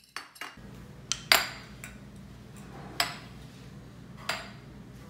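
A series of sharp clinks and knocks of hard objects, the loudest about a second and a half in, over a steady low hum that starts about half a second in.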